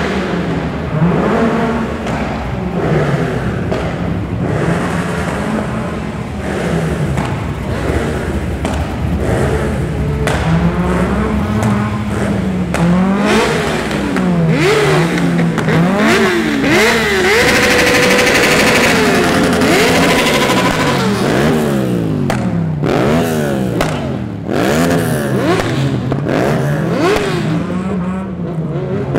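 Performance car engines revving and accelerating as cars drive off one after another, the revs rising and falling over and over with several engines overlapping. It is loudest a little past halfway, when one car pulls hard.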